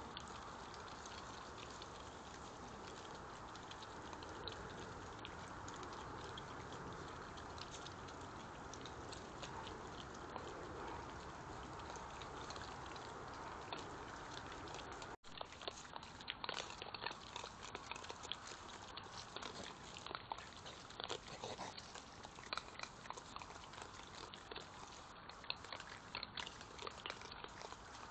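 European badgers feeding at close range: small crunching and clicking sounds of chewing and rooting over the steady hiss of a trail camera's microphone. About halfway through there is a brief dropout, and after it the clicks and crunches come thick and fast.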